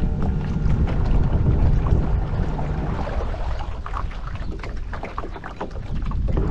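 Small fibreglass tender moving on the water, with water splashing and slapping against the hull. The splashes come thickest between about three and six seconds in, over a low rumble of wind on the microphone.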